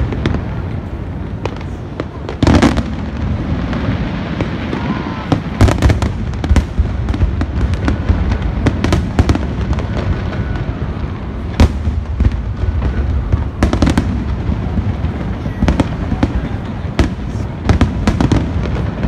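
Aerial fireworks display: shells bursting one after another in sharp bangs at irregular intervals, over a continuous low booming rumble.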